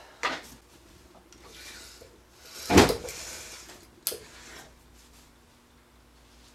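A homemade wooden shelf frame being tipped upright, its wood knocking and rubbing. There is one heavy thump about three seconds in and a sharper knock about a second later.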